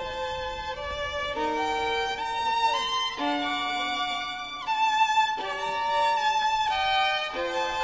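Background music: a melody of held notes, each lasting about a second before it steps to a new pitch, sometimes two notes sounding together.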